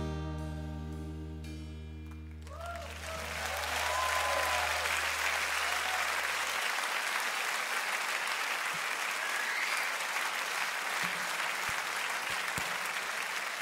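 Concert audience applauding and cheering, with a few whoops about three seconds in, as the band's last chord rings out. A held low bass note dies away about six and a half seconds in.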